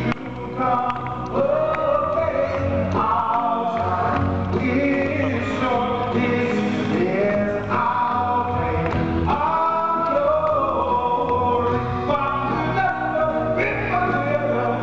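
A man singing a song through a microphone over backing music, his voice rising and falling in long sustained notes.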